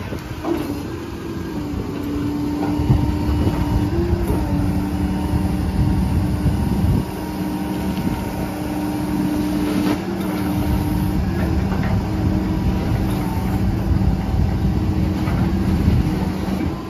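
A rollback tow truck loading a pickup up its tilted bed. An engine runs steadily under a constant whine, with a heavy low rumble and small shifts in pitch about four and ten seconds in.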